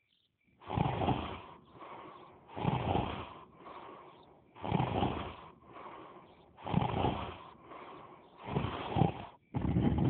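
Snoring in a steady rhythm that begins about half a second in: a loud snore about every two seconds, each followed by a quieter breath.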